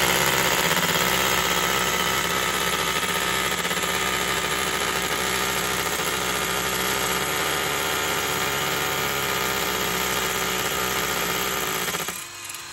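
Ryobi 18V cordless SDS rotary hammer drill running with its hammer action, boring into a brick wall. It runs steadily and cuts off suddenly near the end.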